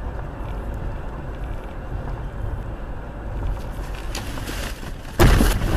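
Steady road and engine noise of a car driving at speed, then about five seconds in a sudden loud crash as it collides with a car crossing in front of it.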